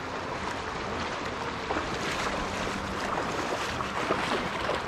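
Shallow, fast river water rushing steadily over stones, with light splashing from wading through it.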